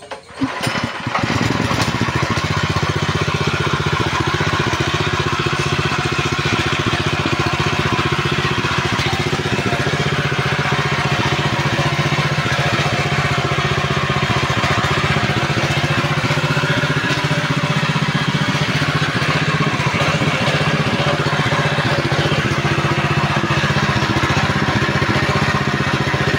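A small stationary petrol engine catches about a second in, then runs steadily at an even speed, turning a belt-driven meat grinder.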